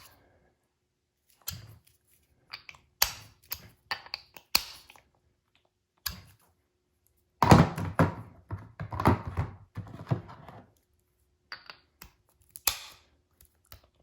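Half-inch impact sockets and extension being handled: scattered metallic clicks and knocks as a socket is fitted onto the extension, with a busier stretch of clattering handling in the middle.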